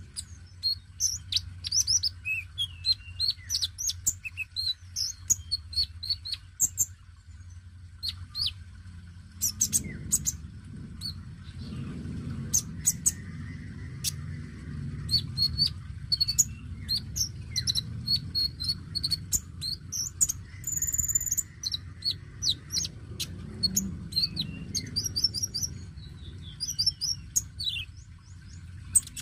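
Male Van Hasselt's sunbird (kolibri ninja) singing: a fast, high-pitched stream of sharp chirps and twitters with short pauses. A low rumble runs underneath from about ten seconds in.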